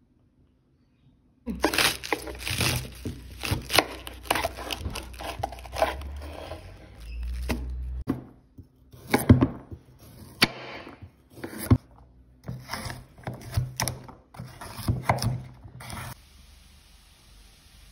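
A kitchen knife chopping cabbage and carrots on a wooden cutting board, starting about a second and a half in. It makes irregular crisp crunches through the vegetables and sharp knocks of the blade against the board.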